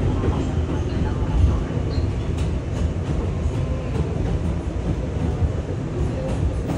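A New York City Subway A train running along the line, heard from inside the car: a steady low rumble of wheels and running gear on the rails, with a few faint clicks.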